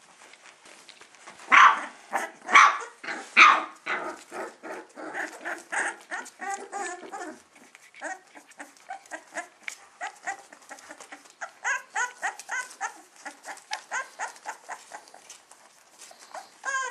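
A litter of young puppies yelping and whining: three loud yelps about a second and a half in, then a quick, steady run of short, high yips and squeals.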